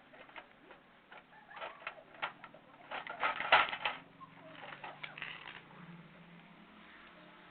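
Bursts of small clicks and rattling, densest and loudest about three and a half seconds in, with softer rustling around five seconds in.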